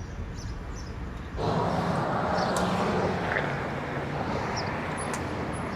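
Steady outdoor traffic noise with a low hum, coming in abruptly about a second and a half in over a quieter background.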